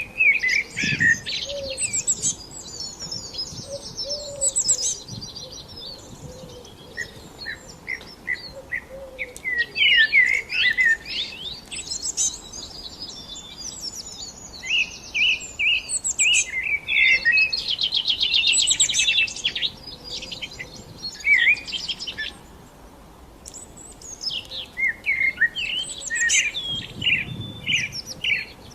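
Several songbirds singing together: overlapping chirps, short whistled notes and fast trills, with brief lulls between bouts.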